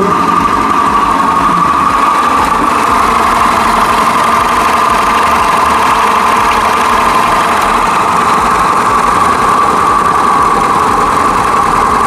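Italika WS-150 scooter engine running steadily at idle, with its magneto flywheel spinning crooked. The mechanic blames the engine's bad noise on a badly worn, crooked crankshaft.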